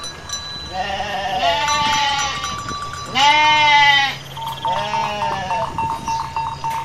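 Sheep bleating, about four calls, the loudest a little past three seconds in.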